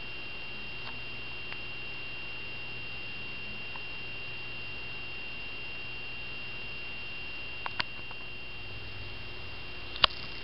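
Quiet room tone with a steady faint high-pitched whine. Two small clicks come about eight seconds in and one sharp click near the end, typical of the camera being handled as the shot shifts.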